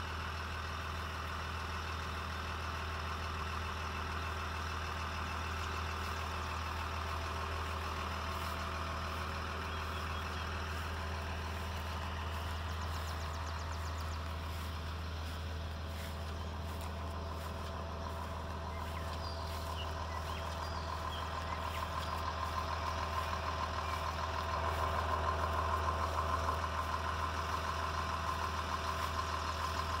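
Kubota L3350 tractor's diesel engine idling steadily, a little louder in the last third.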